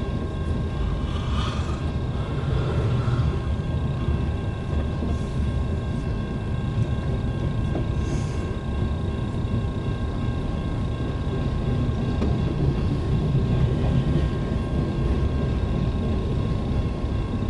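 Steady low vehicle rumble heard from inside a car, even throughout, with faint steady high tones above it.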